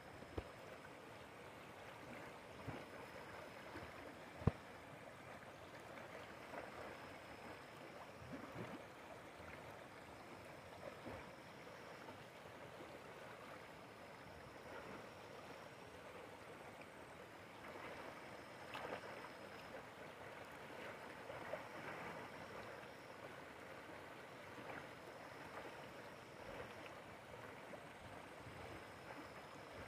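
Fast river current rushing and gurgling over rocks, a faint steady rush of water. A few sharp knocks stand out, the loudest about four and a half seconds in.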